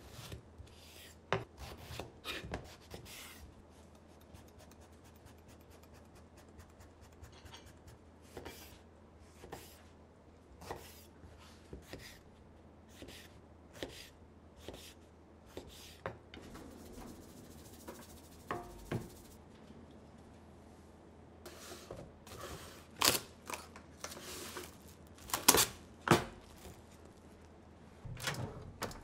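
Kitchen knife cutting eggplants on a wooden cutting board: irregular knocks of the blade meeting the board, about one a second, with softer slicing between. A few louder knocks come near the end.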